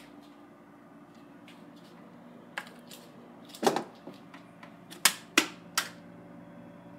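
Sharp clicks and knocks from handling at an open refrigerator, a couple about a third of the way in and a quick cluster of three near the end, over a steady low hum.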